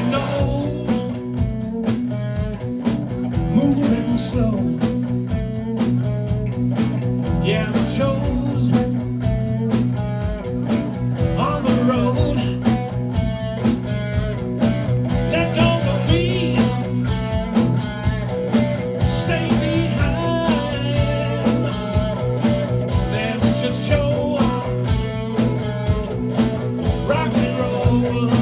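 Rock band playing a blues-rock song: guitar over bass and a steady drum beat.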